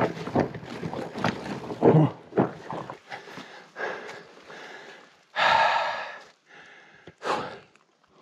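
A rider puffing and breathing hard while pushing a loaded fatbike over rough, rooty, rocky trail. For the first three seconds there are rattles and knocks from the bike, then two loud puffs of breath about five and a half and seven seconds in.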